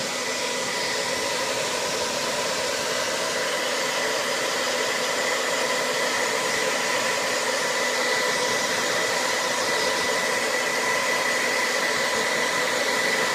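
Household hairdryer running steadily, a loud rush of air with a steady whine from its motor. It is blowing hot air onto a doll's vinyl head to soften it.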